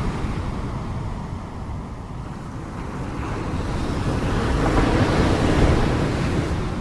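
Sea surf washing ashore: the wash eases, then a wave swells up and breaks about five seconds in before receding.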